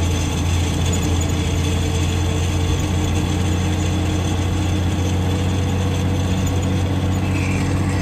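Older Mercedes-Benz truck's diesel engine running at a steady pitch, heard from inside the cab while driving.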